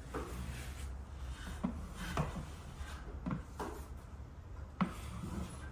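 A drywall knife spreading and scraping joint compound over a drywall seam in short strokes, about six of them, over a low steady hum.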